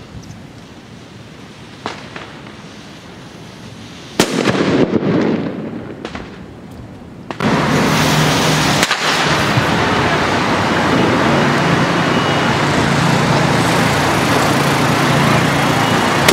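Megatrons Butterfly ground fireworks burning with a loud, steady hissing rush and a low hum, starting suddenly about seven seconds in. A brief loud burst comes a few seconds before it.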